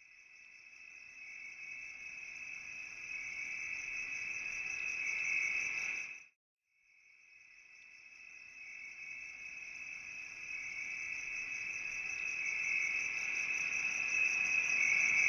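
A shrill, steady insect trill at two high pitches, swelling in from silence. It cuts off about six seconds in, then starts again a second later and grows louder.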